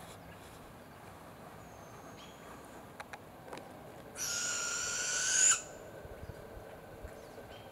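A young barred owl gives one harsh, hissing screech about a second and a half long, about halfway through, growing louder and cutting off suddenly: the begging call of a fledgling barred owl.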